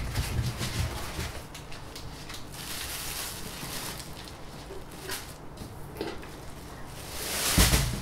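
Packaging being handled: a foam packing block knocked down into a cardboard box with dull thumps, plastic wrap rustling, and near the end a louder rustle and bump as the printer is pulled free of its foam and bag.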